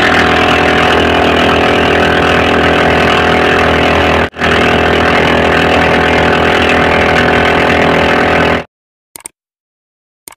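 Loud, steady channel-intro soundtrack with an engine-like drone, breaking off for a moment about four seconds in and stopping about a second and a half before the end, then two faint clicks.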